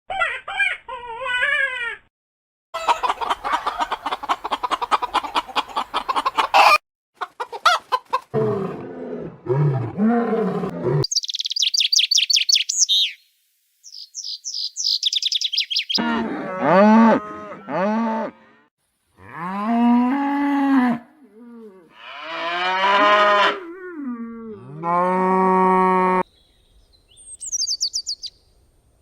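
A series of different animal calls, one short clip after another: a wavering call, a fast rattling call, lower grunting calls, high chirps, then several long, drawn-out low calls, and a last burst of chirps near the end.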